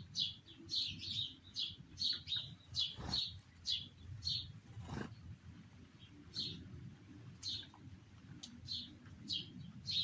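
Small bird chirping in a series of short high calls, frequent at first and becoming sparser after about five seconds. Two brief knocks sound at about three and five seconds in.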